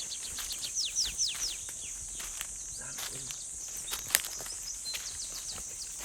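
Jungle ambience: a steady high-pitched insect drone, with a bird giving a quick run of falling whistled notes about a second in. A single sharp click sounds about four seconds in.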